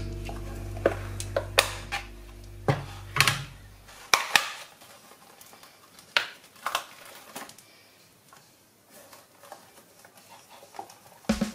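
Background music fading out over the first few seconds, with scattered sharp clinks of dishes and cutlery that go on alone after it.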